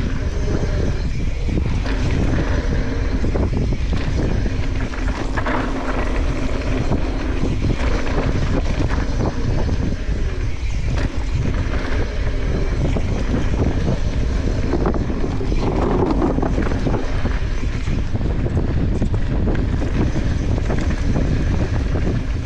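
Steady low rumble with wind buffeting the microphone.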